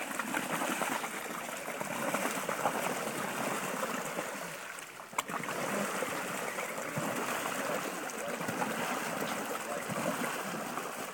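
Blue plastic paddle wheels of a small hand-cranked paddle boat churning and splashing the water steadily, with one sharp click about five seconds in.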